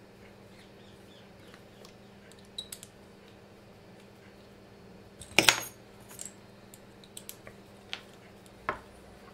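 Scattered small metallic clicks and clinks as a small screwdriver and an M3 bolt are handled, running the bolt through a freshly tapped hole in a 3D-printed plastic part. One louder, brief clatter comes about five and a half seconds in.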